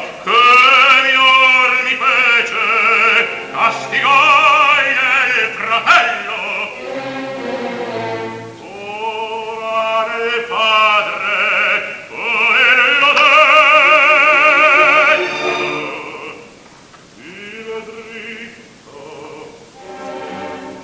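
Operatic baritone singing in Italian, full-voiced with wide vibrato, over orchestral accompaniment. The loudest part is a long held high phrase in the middle; the singing grows softer near the end.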